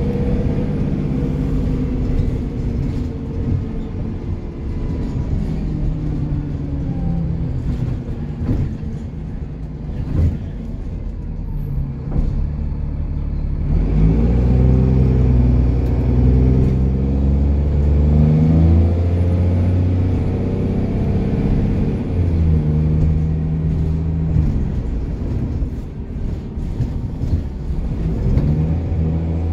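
Cummins ISCe 8.3-litre diesel engine of a Dennis Trident 2 bus with a blowing exhaust, heard from inside the bus as it is driven hard. The engine eases off about ten seconds in, then pulls loudly from about fourteen seconds with the revs climbing, and climbs again near the end, over interior knocks and rattles.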